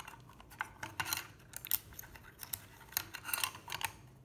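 Light clicks and scrapes of a small metal LED junction box being handled and its cover closed, a series of short sharp clicks with rubbing between them.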